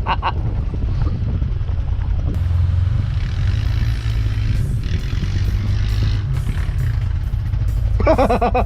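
Engine running at a steady low rumble, with a hiss joining about two seconds in.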